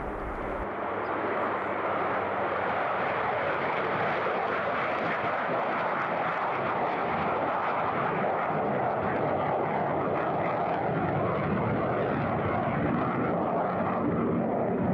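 Military jet on its takeoff roll: a loud, steady rushing jet engine noise that builds over the first two seconds and then holds.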